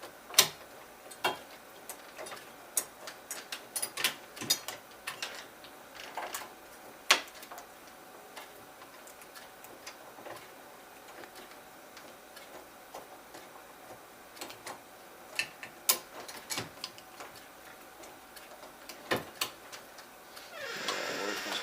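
Irregular clicks and taps of metal lock hardware being handled as mounting bolts are fed through a deadbolt into a smart lock's holes, with a short louder sound rising in pitch near the end.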